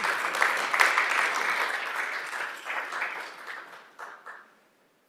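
Audience applauding, dense clapping at first that thins out and dies away after about four seconds.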